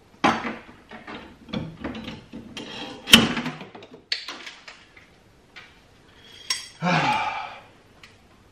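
Hand tools clinking and clanking against the steel strut top-mount bolts in a car's engine bay: a series of separate sharp metal knocks and rattles, the loudest about three seconds in.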